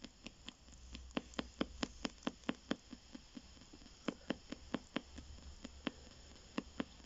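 P-SB7 spirit box sweeping AM radio stations, heard through an external speaker: a run of sharp clicks, about four or five a second, over faint static, pausing briefly twice.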